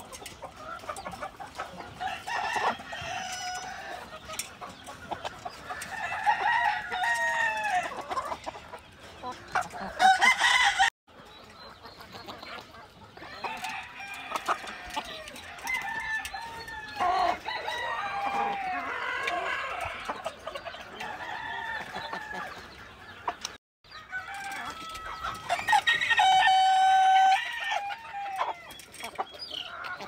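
Chickens clucking and calling as they peck at azolla offered through wire mesh. There is a loud sharp burst about ten seconds in and a long, level held call near the end.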